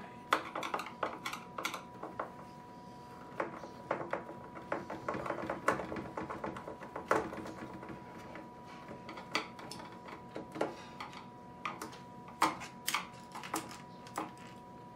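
Screwdriver working the screws out of an incubator's clear plastic inner cover: irregular clicks and taps of the driver, screws and hard plastic, some in quick runs, others spaced out. A faint steady tone sits underneath.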